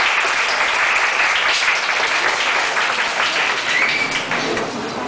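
Audience applauding after a cheer routine, a dense patter of clapping that dies down near the end.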